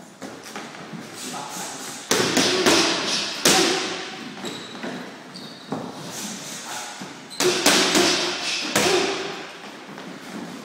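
Boxing-glove strikes landing on focus mitts: sharp slapping thuds in two quick flurries, one about two seconds in and another about seven seconds in.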